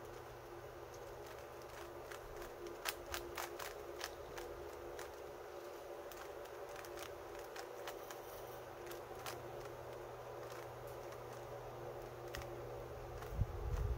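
Plastic 3×3 speed cube being turned by hand: sharp clicks of its layers turning, several in quick succession about three seconds in and scattered singly after, over a steady faint hum.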